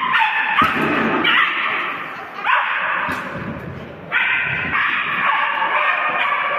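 A small dog yapping and barking at a high pitch, almost without a break.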